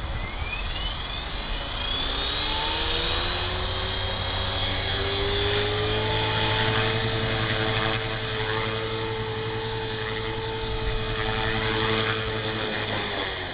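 HK-450TT Pro electric RC helicopter (Turnigy 2218H brushless motor driving a flybarless main rotor) spooling up, its whine rising in pitch over the first few seconds, then holding a steady whine and rotor hum in hover. The sound drops away near the end as the helicopter settles back down.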